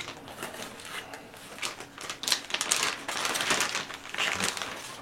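Plastic packaging of a ration-kit item crinkling and rustling as it is handled, in irregular crackles that are loudest in the second half.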